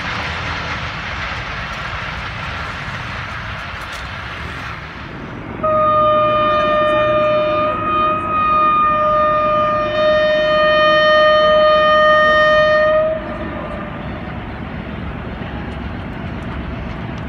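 A passenger train's coaches roll away along the track with a steady rumble. Then a diesel locomotive's horn sounds one long, loud, single-pitched blast of about seven seconds, dipping briefly twice, as the train approaches the station.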